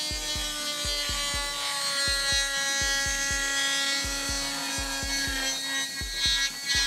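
Dremel rotary tool running at high speed with a steady whine, its bit grinding a hole through the wall of a clear plastic container. A music beat thumps along underneath.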